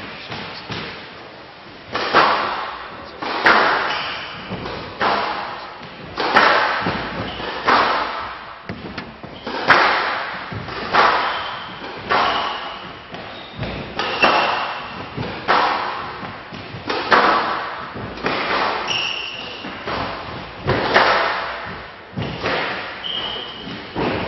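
A squash rally on a glass court: the ball cracks off rackets and walls about once a second from about two seconds in, each hit ringing out in the hall, with short high squeaks of shoes on the court floor.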